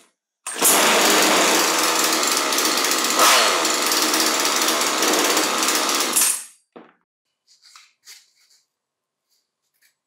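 Small two-stroke chainsaw engine running with a fast, even pulse, briefly changing pitch about three seconds in, then cut off after about six seconds.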